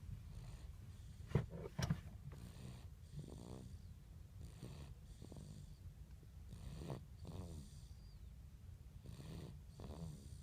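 A sleeper snoring, a run of separate fluttering snoring breaths. Two sharp clicks sound about a second and a half in.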